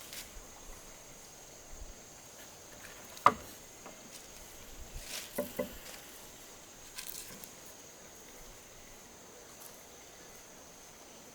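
Faint steady high-pitched insect drone, broken by one sharp knock about three seconds in and two softer knocks about two seconds later.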